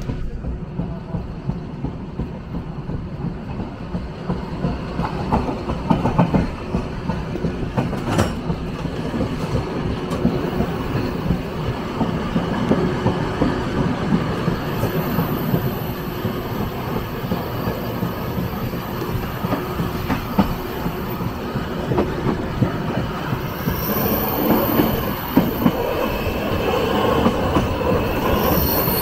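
Flåm Railway passenger train running along the track, a steady rumble with scattered wheel knocks over the rail joints. A thin, high-pitched wheel squeal comes in about halfway and again near the end.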